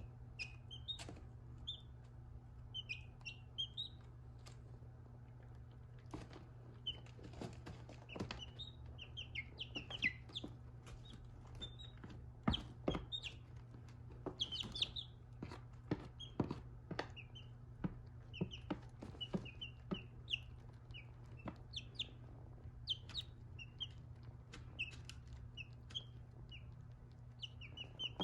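Baby chicks peeping in short high chirps while pecking at dry cat food, with many sharp clicks of beaks striking the kibble, over a steady low hum.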